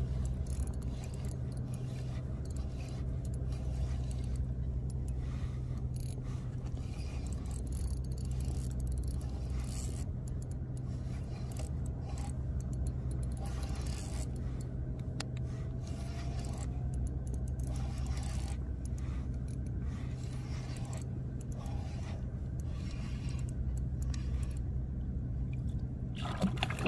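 Fishing rod and spinning reel being worked by hand, with scraping and clicking handling noises, over a steady low hum.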